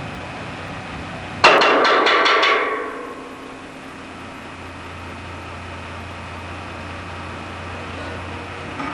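A quick run of hammer blows, about half a dozen in roughly a second, driving nails on a house frame.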